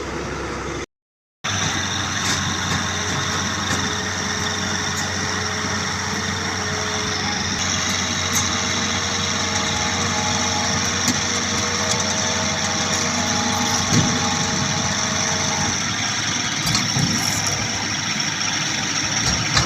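Heavy diesel machinery engine running steadily, with a constant whine over the engine note and one sharp knock partway through. The sound drops out completely for about half a second near the start.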